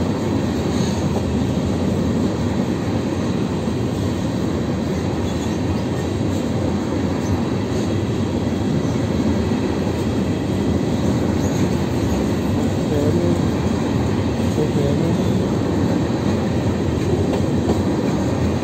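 Freight train of open-top gondola cars rolling past, a steady loud noise of steel wheels running on the rails.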